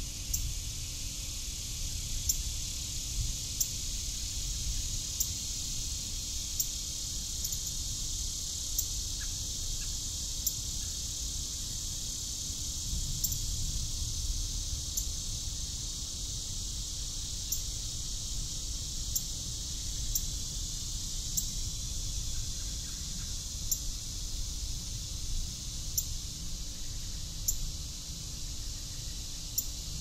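Insect chorus: a steady, high-pitched shrill hiss running without a break, over a low rumble. Short sharp ticks come every second or two.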